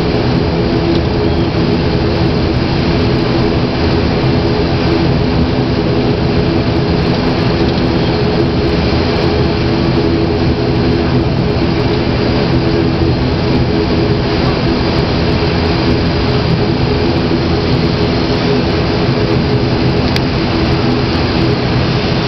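Turboprop airliner's engines and propellers at takeoff power during the takeoff roll, heard inside the cabin: a loud, steady drone with a constant hum throughout.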